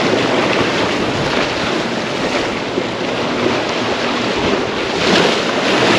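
Wind rushing over the microphone, with waves washing below, swelling briefly about five seconds in.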